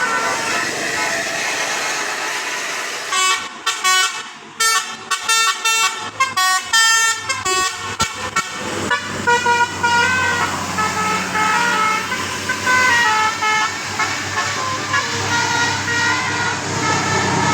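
Telolet bus horn: a Basuri multi-tone musical air horn playing a tune of quick notes that step up and down, choppy with short breaks for several seconds, then running on more smoothly.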